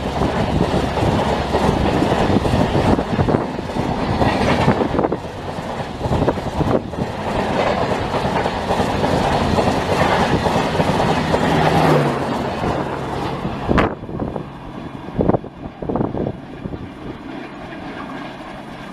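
Humsafar Express AC three-tier passenger coaches rushing past at speed: a loud, continuous roar of wheels on rails and moving air. About twelve seconds in it drops off as the last coaches go by, followed by a few sharp knocks and a quieter, steady rumble of the train moving away.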